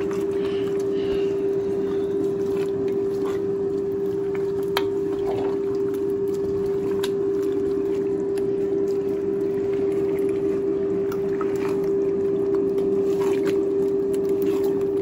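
A large pot of cassava leaf soup bubbling on the stove under a steady hum of one constant pitch, with a few light clicks from a spoon stirring the pot near the end.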